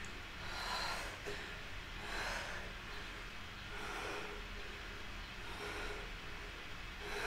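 Faint breathing of a person holding a yoga pose: soft breaths about every second and a half, over a low steady room hum.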